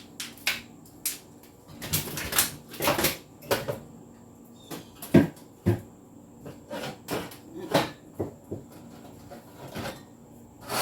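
Food containers, bottles and jars being handled while a refrigerator shelf is cleared: an irregular run of clicks, knocks and clatters, the sharpest about halfway through.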